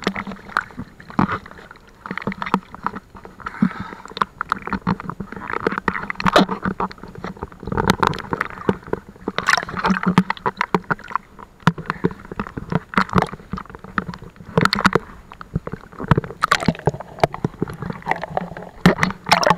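Seawater splashing and gurgling around a camera bobbing at the surface, with irregular slaps and bubbling as it dips in and out of the water. A faint steady low hum runs underneath.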